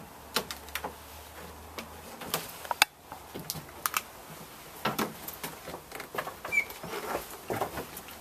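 Footsteps knocking and tapping irregularly on steep wooden stairs as people climb, with one sharp knock a little before three seconds in.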